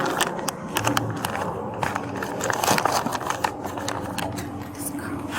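Rustling, crackling handling noise: a dense run of sharp clicks and rubbing, thickest about two to three seconds in.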